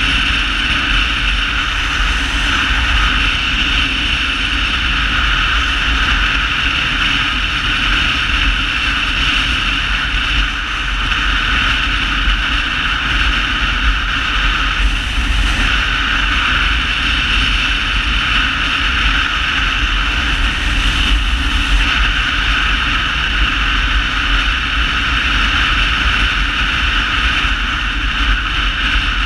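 A touring motorcycle riding at a steady speed: a constant wind rush over the onboard camera's microphone mixed with the engine running. The loudness barely changes, with only a slight dip about ten seconds in.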